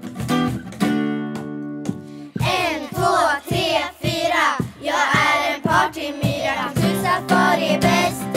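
A song: acoustic guitar strumming chords, joined about two and a half seconds in by children singing.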